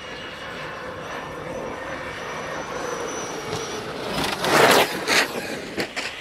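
Electric RC cars' motors whining as they drive over concrete. Loud rushing swells come about four and five seconds in as the cars pass close by.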